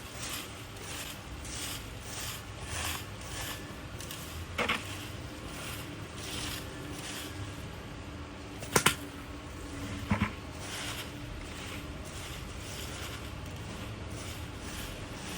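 Dry leaves being scraped together across the ground in quick repeated strokes, with three sharp knocks along the way.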